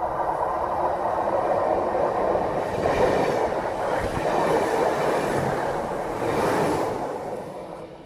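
Train passing by on the railway line, its rumble swelling and then dying away near the end.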